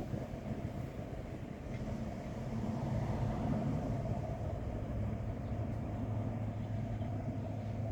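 Wind gusting and rumbling on the microphone, with a low steady drone underneath that builds from about two seconds in.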